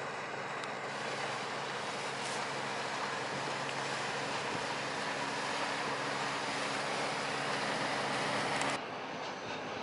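Diesel engine of a work boat or barge running steadily, a low hum under a wide hiss that grows slightly louder. The noise drops abruptly about nine seconds in.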